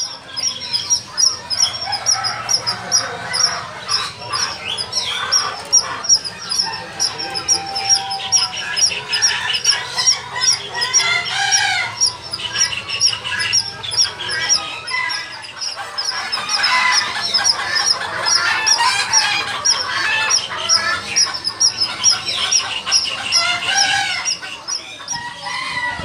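Many caged birds calling at once: a din of chirps, whistles and glides, with clucking and crowing calls from fowl mixed in, over a fast, even, high-pitched chirping.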